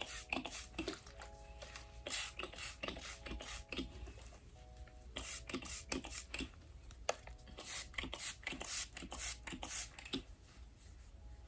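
Repeated quick hissing spritzes from a pump spray bottle of braid sheen spray, worked along the braids, about one or two a second.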